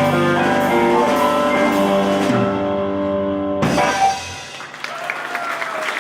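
Live blues band with electric guitar holding a final chord, closed by a sharp ensemble hit about four seconds in; applause starts as the chord dies away.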